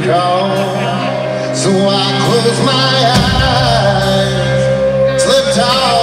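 Live country band playing, loud and steady, heard from the audience seats in front of the stage.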